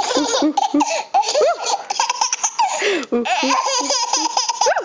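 Babies laughing: a continuous run of high, rising-and-falling laughs.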